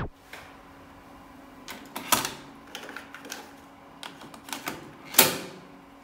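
Mechanical clicks and clunks of a Denon DR-M2 cassette deck being operated by hand, its transport keys pressed and the mechanism responding, with two louder clunks about two seconds in and about five seconds in.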